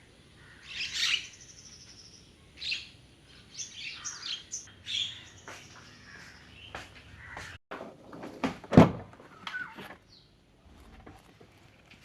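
Birds chirping, a string of short high calls. After a sudden break, a few sharp knocks and thumps follow, the loudest about nine seconds in.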